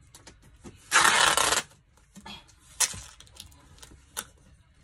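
Packing tape pulled off the roll in one loud, noisy rip about a second in, followed by scattered taps and rubs of hands pressing the tape down on a cardboard box.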